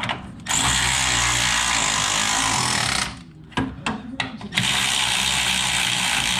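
Cordless electric ratchet running a nut off a frame bolt. It runs steadily for about two and a half seconds, gives a few short blips, then runs steadily again.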